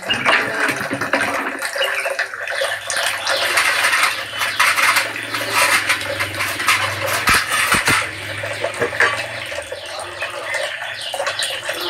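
Water running and splashing steadily, as from a tap filling a container, with a low steady hum through the middle and two sharp knocks a little past halfway.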